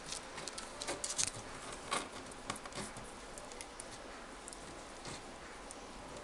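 A beagle puppy moving about and sniffing right at the camera: light, scattered ticks and patter, busiest between one and three seconds in, over a faint steady hiss.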